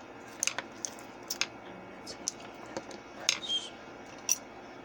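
A dozen or so light, irregular clicks and taps of hard plastic makeup brushes and products being handled and put down while a brush is picked out.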